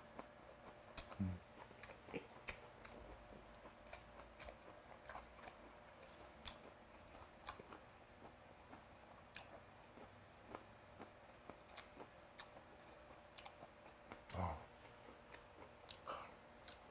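Faint chewing of a mouthful of raw snakehead sashimi with soybean paste and green chili, small wet mouth clicks scattered throughout. Two brief low murmurs come about a second in and near the end.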